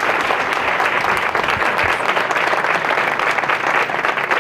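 A large audience applauding: many hands clapping together in a steady, dense patter.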